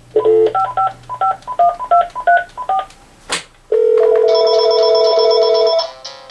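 Telephone dialing. A short burst of dial tone is followed by a quick string of about ten touch-tone (DTMF) digit beeps. A click comes next, then a steady ringing tone on the line for about two seconds, with higher tones joining it partway through.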